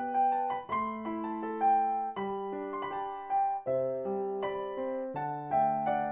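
Background music: a gentle keyboard piece in the sound of an electric piano, with a melody over held chords that change every half second to a second.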